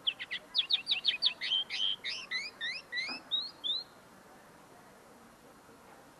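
Common linnet (pardillo) singing a quick run of short twittering notes for about four seconds, the last few notes rising slurs. The owner says this young bird's song is still being polished, its notes not yet fully clear.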